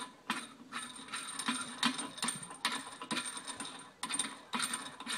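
Light metallic clicks and clinks, irregular at about three a second, as a lock nut is turned by hand onto the threaded steerer of a scooter fork, the headset's metal parts ringing briefly with each click.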